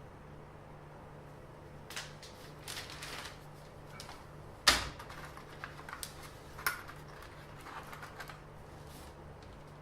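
Handling noise: a scattered run of light clicks, taps and rustles, with one sharp knock about halfway through.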